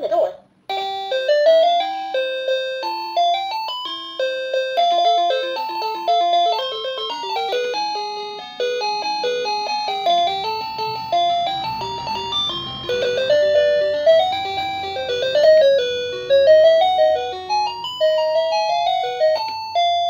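Sanking BE-053A wireless doorbell receiver playing one of its built-in electronic chime melodies through its small speaker: a long tune of quick single notes that starts just under a second in and stops near the end.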